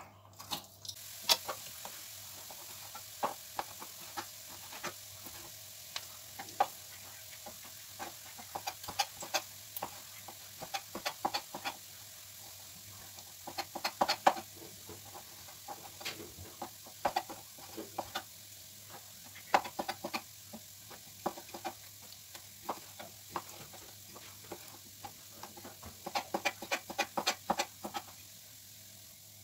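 Knife tapping and clicking on a plastic cutting board in irregular clusters as chicken breast is cut into cubes, over a faint steady sizzle of onions frying in a pan.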